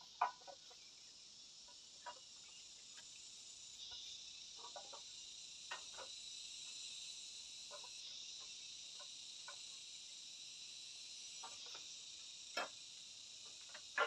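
Steady high-pitched insect noise, with a few short sharp clinks and knocks of clay roof tiles being set onto a bamboo frame, the loudest just after the start and near the end.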